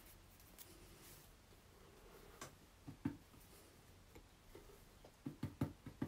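Quiet room with a few faint clicks, then near the end a quick, even run of soft taps, about four or five a second: a paintbrush dabbing highlights onto the painting board.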